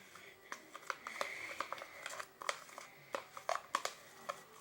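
A utensil stirring a thick mix of dish detergent and toothpaste in a container, with irregular small clicks and taps and a short scraping stretch about a second in, as the mixture starts to thicken.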